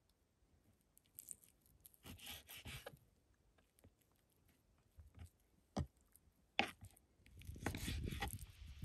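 Knife cutting raw meat into chunks on a wooden cutting board: scattered small taps and short scraping cuts, and a couple of sharp knocks of the blade on the board. A louder low rumbling noise sets in near the end.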